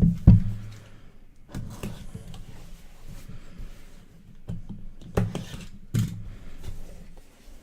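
Handling noise of a trading-card box being opened: a few sharp knocks and taps with rustling in between.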